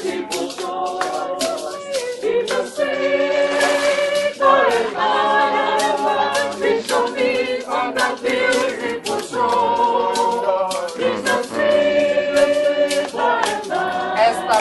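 A group of voices singing a hymn without instruments, in held notes that change every second or so. Many short sharp clicks run through the singing.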